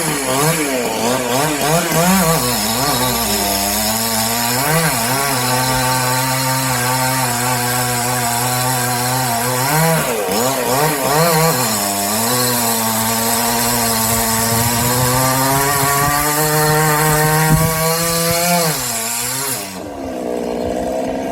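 Chainsaw revving in short bursts, then held at high revs cutting through a coconut palm trunk, dropping back to idle about nineteen seconds in.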